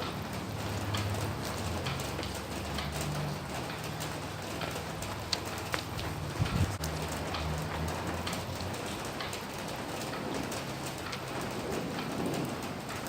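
Steady rain falling, with many separate drops pattering and ticking on a surface. A few louder drip knocks come around the middle. A low, wavering hum runs underneath and fades out about two-thirds of the way through.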